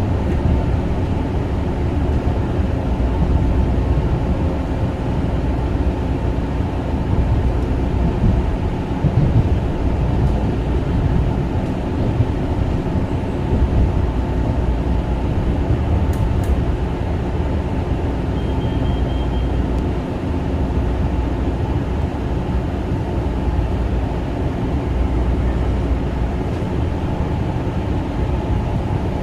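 Kawasaki M9 electric railcar train running along the track: a steady rumble of wheels on rail with a constant electrical motor hum underneath.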